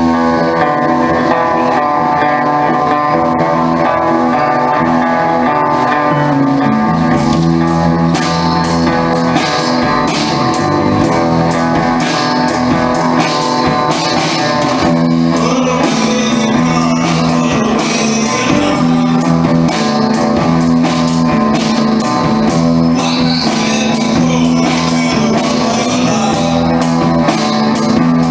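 A three-piece rock band playing live: electric guitar, bass guitar and drum kit. Held guitar chords and a repeating bass figure open the passage, and the drums come in with a steady beat about seven seconds in.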